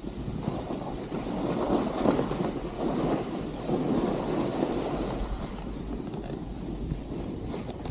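Edges scraping and sliding over snow as a rider descends, a rough hiss that swells and fades with the turns, with wind rumbling on the microphone.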